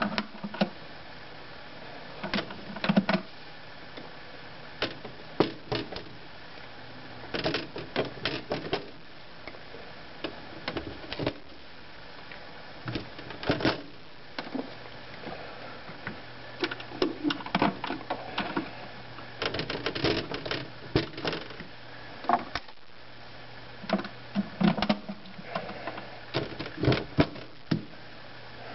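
Irregular clusters of small plastic clicks and taps from hands pulling plugs off push-fit water fittings and pushing ¼-inch plastic filter tubing into them.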